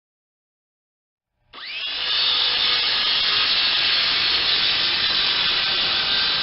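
Cordless portable circular saw starting about a second and a half in, its blade whine rising quickly, then running steadily as it cuts.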